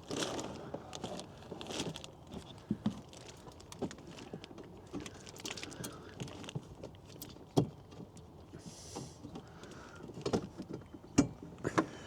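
Scattered clicks, knocks and rustles of a flat-screen TV, its mounting bracket and cables being handled and positioned, with a few louder knocks in the latter part.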